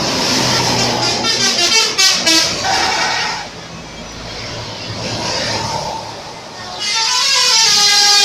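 Bus telolet horn: a set of musical air horns on a bus playing a loud, fast, tootling tune. The horn sounds for about three and a half seconds, drops back, then sounds again over the last second and a half.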